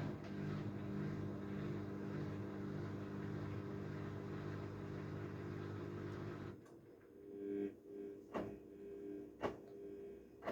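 Haier 7.5 kg washing machine on a delicate cycle: the drum turns with a steady motor hum and swishing, then stops abruptly about six and a half seconds in. A fainter steady hum follows, broken by a few sharp clicks or knocks.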